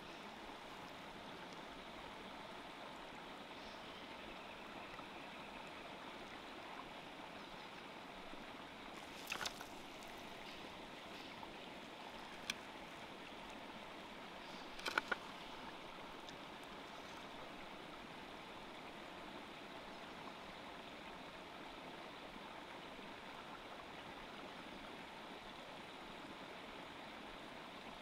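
Steady rush of a flowing stream, with a few short sharp knocks about nine, twelve and fifteen seconds in.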